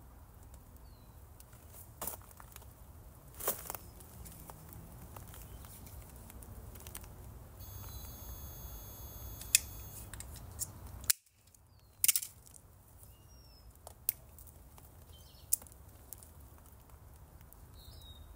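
Scattered sharp clicks and snaps from handling and cutting plastic drip irrigation tubing and its fittings, a few seconds apart, over a low steady rumble. A few faint high bird chirps come and go.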